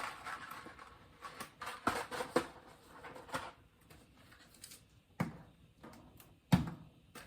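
Scattered knocks and clicks of kitchen items being handled and set down on a counter, a few sharp thuds among lighter taps.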